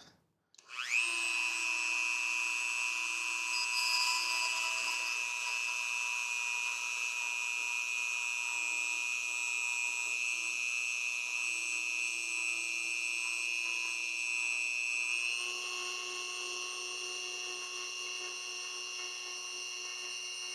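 Dremel rotary tool spinning up about a second in and running with a steady high whine as the spinning 2.85 mm 3D printer filament rod is pressed into the seam of a 3D-printed part, friction-welding it. About three-quarters of the way through its pitch steps up slightly and it gets a little quieter.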